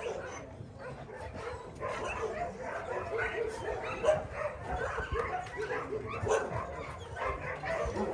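Shelter dogs barking and yipping, their calls overlapping without a break.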